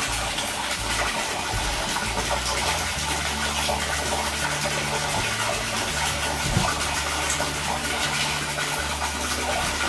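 A stream of water pouring into a shallow inflatable pool, splashing steadily on the water surface.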